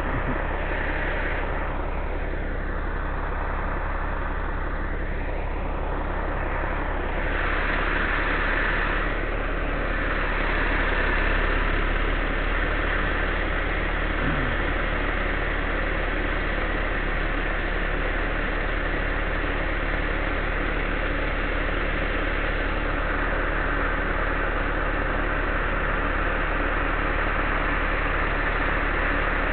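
Combine harvester's engine running steadily.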